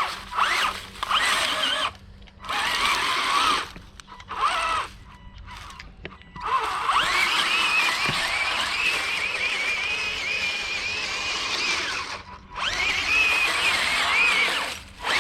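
Bwine Q111 RC crawler tank's electric drive motors whining in several short bursts of throttle. About six and a half seconds in, a longer run of several seconds begins with the pitch rising as it speeds up, and a final burst follows near the end.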